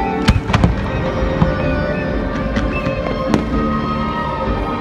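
Fireworks display: aerial shells bursting with sharp bangs, two close together under a second in, another near one and a half seconds and a loud one a little past three seconds, over a continuous low rumble.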